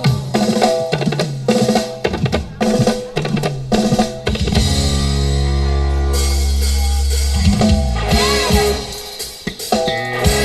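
Music played loud through a sound system: a drum-kit beat with bass drum and snare, broken midway by one long, steady, deep bass note of about three seconds, after which the beat resumes.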